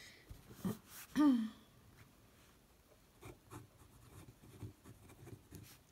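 TWSBI Eco fountain pen nib writing on thin Tomoe River paper: faint, irregular scratches and ticks of the nib. Near the start, a light knock and a short hum that falls in pitch.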